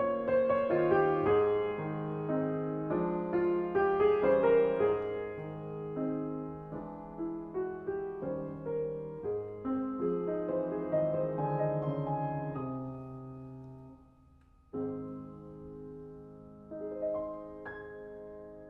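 Solo piano played on a 1927 Érard 90-key piano. A flowing passage in A-flat major thins out and dies away to near silence. Then two chords are struck a couple of seconds apart and left to ring and fade.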